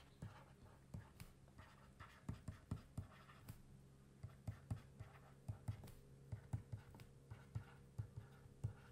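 Faint, irregular tapping and scratching of a stylus on a tablet's writing surface as words are handwritten, with a low steady hum underneath.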